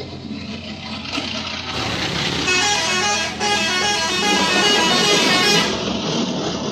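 A bus's 'telolet' musical horn playing a quick tune of changing notes, starting a couple of seconds in and stopping near the end.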